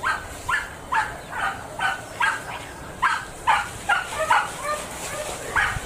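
Hunting dogs yipping on the trail of a wild boar piglet, in a quick string of short, high barks about two a second, with a brief pause about a second before the end.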